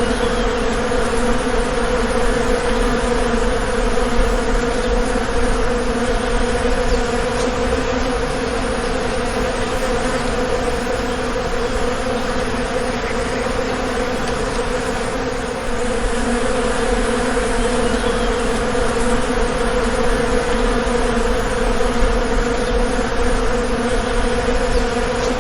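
Honeybee colony buzzing: a steady, dense hum of many bees with a strong low pitch, stepping up slightly in loudness about fifteen seconds in.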